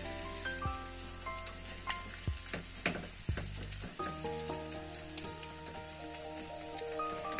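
Shredded-zucchini pancake batter sizzling as it fries in a nonstick frying pan, with a metal ladle clicking and scraping against the pan as it spreads and presses the batter. A tune plays softly underneath.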